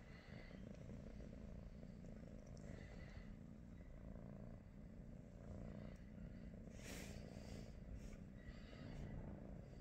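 British Shorthair cat purring, a low steady rumble, with a brief rustle about seven seconds in.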